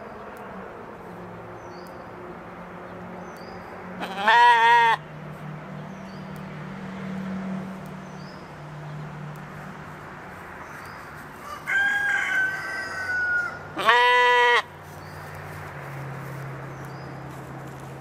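Katahdin sheep bleating: two loud, quavering calls about ten seconds apart, each lasting about a second, with a quieter, higher call between them. Faint high chirps repeat steadily over a low hum.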